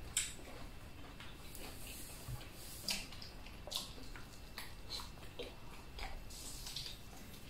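People chewing and eating with their hands: quiet, irregular wet smacks and small clicks, a few of them louder.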